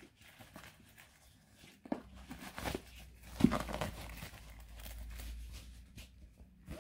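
Canvas drawstring pouch being handled and opened by hand: the fabric rustles and crinkles in scattered short strokes, starting about two seconds in and loudest around the middle.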